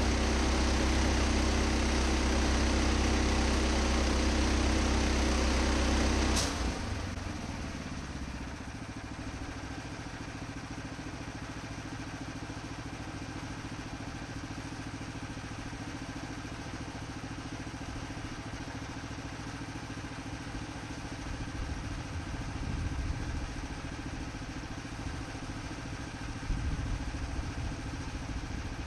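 A motor running steadily, which cuts off suddenly with a click about six seconds in; a quieter steady engine hum goes on after it, with a few light clatters.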